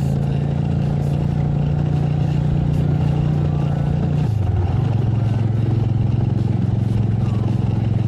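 Motorcycle engine running steadily while riding. About halfway through, its pitch drops and then holds steady at the lower note, as the revs fall.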